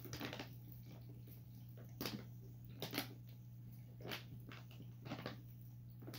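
A rabbit feeding at a plastic treat-puzzle tray: a handful of faint, short crunches and clicks, spaced about a second apart, over a steady low hum.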